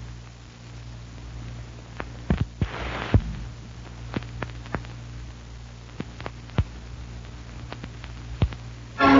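Background noise of an old radio recording: a steady low hum and faint hiss with scattered clicks and pops, a cluster of them around two to three seconds in. Music starts again right at the end.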